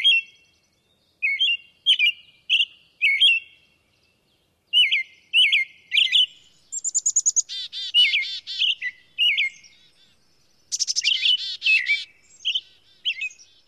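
Birds chirping and singing: a run of short, separate chirps, with faster rapid-fire phrases about halfway through and again near the end.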